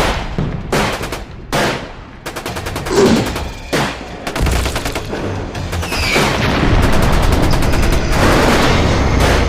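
Battle sound effect: bursts of rapid machine-gun fire over a steady low rumble.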